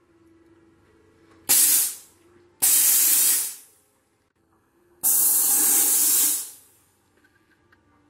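Sauber Brilliance steam cleaner letting out steam in three hissing bursts: a short one about a second and a half in, a longer one a second later, and the longest, over a second, past the middle.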